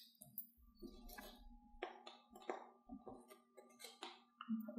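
Faint, light clinks of a metal teaspoon against a small tub as baking powder is scooped out, about half a dozen taps over a few seconds, some with a short ring. A faint steady low tone sits underneath.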